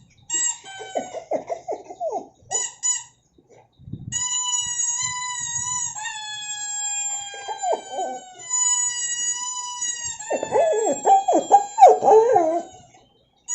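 A high-pitched squeaky tone held steady for a few seconds at a time, and a puppy answering it with quick falling whines and yelps, several a second, near the start and again in the last few seconds.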